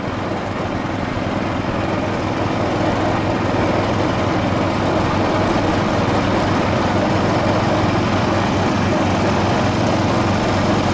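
Garden tractor's small engine running steadily, a little louder after the first couple of seconds.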